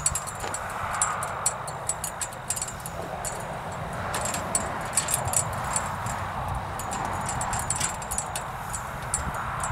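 A cloth rag rubbing back and forth over a stripped aluminum truck grill shell: a soft rubbing noise that swells and fades with each stroke. Faint quick high clicks run through it.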